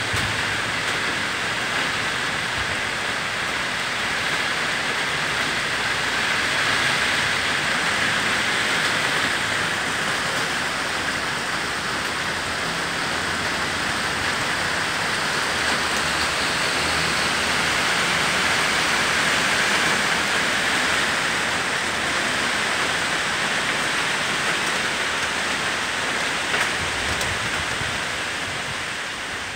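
Steady rain falling on tree foliage: an even, continuous hiss.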